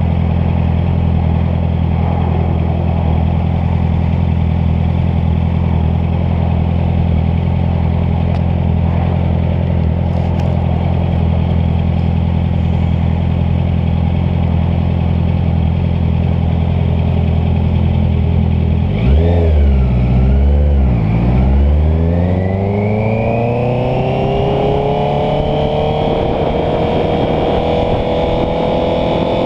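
Honda CBR650F's inline-four engine running at a steady pitch while riding. About two-thirds of the way through, the pitch dips and rises quickly twice, then climbs smoothly and levels off as the bike accelerates.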